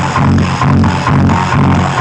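Electronic dance music with a heavy, pounding bass beat about two beats a second, played very loud through a large carnival sound system being tested.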